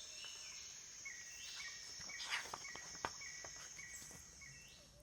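Faint night-insect ambience: crickets chirping, a steady high trill with a short chirp repeating about twice a second.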